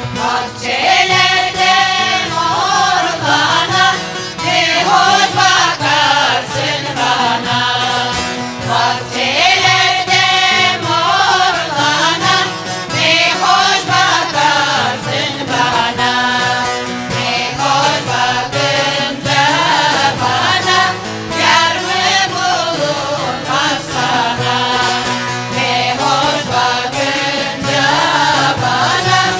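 Several voices singing a folk song (türkü) over instrumental accompaniment.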